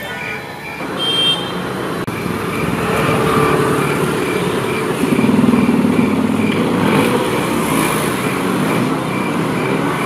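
Evening street traffic: the engines of scooters and motorbikes running and passing, loudest in the middle. A cricket chirps in a steady, regular rhythm underneath.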